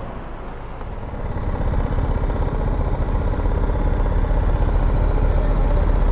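Adventure motorcycle's engine running as the bike rides off at low speed, its sound growing louder about a second in and then holding steady.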